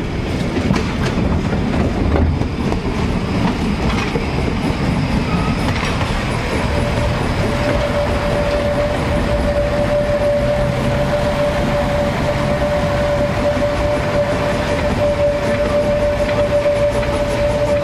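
Narrow-gauge diesel railcar 187 012 running past at close range, its wheels rumbling and clattering over the rail joints. About seven seconds in a steady high squeal sets in and holds.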